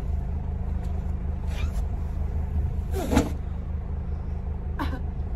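A car engine idling with a steady low hum, picked up from the vehicle's open rear cargo area. A brief, louder sound rises over it about three seconds in.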